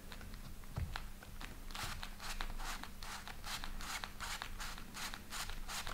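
Card wheel in a pop-up book turned by a finger: a quick run of light, scratchy clicks of card rubbing on card, about five a second, starting about two seconds in and stopping near the end.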